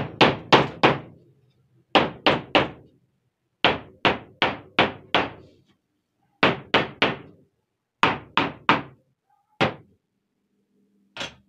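Hammer tapping staples flush into the joints of a wooden door frame, so that the staples sink into the wood. About twenty sharp blows come in quick groups of three to five with short pauses, then two single blows near the end.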